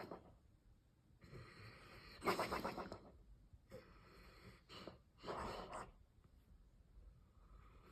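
A man snoring in his sleep: drawn breaths, each with a rattling snore, loudest about two seconds in and again around five seconds, with short snorts between.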